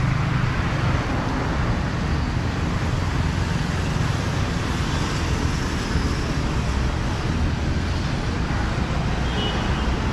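Steady road traffic noise from passing vehicles on a city street.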